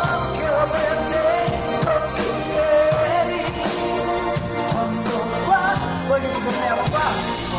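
Live pop band playing a song with a woman singing a wavering melody over drums and bass.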